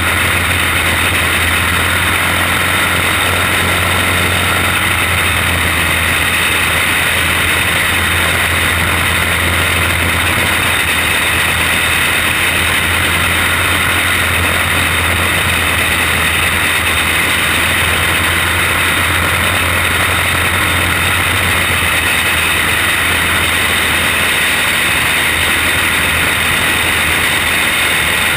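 Onboard sound of a caged racing kart at speed: its engine runs in a loud, steady drone with little change in pitch.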